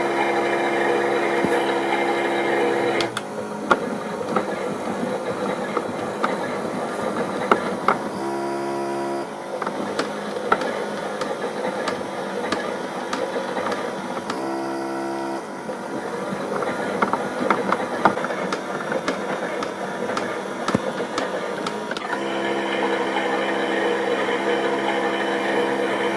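Theo Klein toy Miele Novotronic washing machine's small battery-driven motor whirring steadily as it turns the drum. It stops about three seconds in, leaving a softer stretch with scattered clicks and two brief whirs, then runs again near the end.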